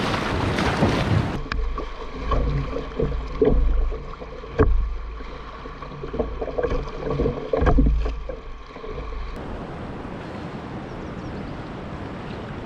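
Kayak paddle strokes splashing in choppy river water, with wind buffeting the microphone and a few sharp knocks. About nine seconds in it settles into a steady rush of wind and moving water.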